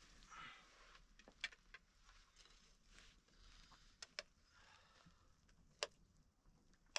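Near silence with a few faint, sharp clicks, about four of them, scattered irregularly.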